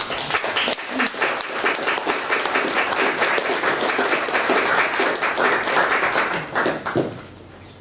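Audience applauding, many hands clapping together; the applause stops about seven seconds in.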